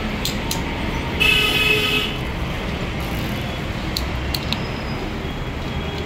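A vehicle horn sounds once, for just under a second, about a second in, over a steady low traffic rumble. A few small metal clicks come from a Hero motorcycle lock being worked by hand.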